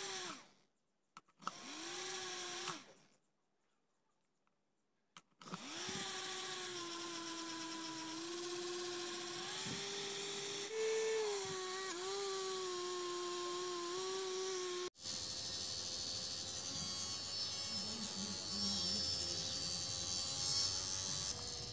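Small RS-380 brushed DC motor with a plastic fan blade running, a steady whine. It winds down right at the start, spins up briefly and stops again, then after a few seconds of quiet runs steadily, its pitch stepping up slightly partway through. About 15 seconds in the sound breaks off abruptly and turns fainter and hissier with a higher tone.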